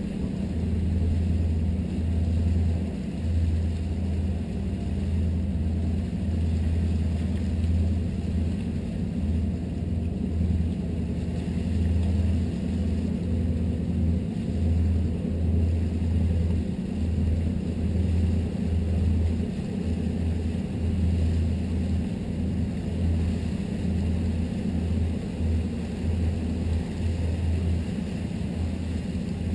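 Steady low drone of a 1998 Sea Ray 330 Sundancer's inboard engines holding cruising speed, heard from the bow, with an uneven rumble underneath.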